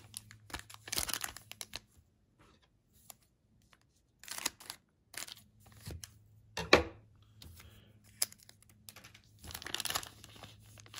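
A foil baseball card pack wrapper crinkled and torn open by hand, heard as a series of short, sharp crinkles and rips spread over several seconds.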